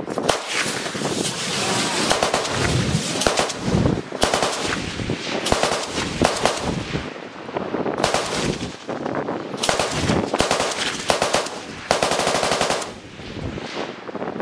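Automatic gunfire in rapid bursts of a few seconds each, with short breaks between bursts.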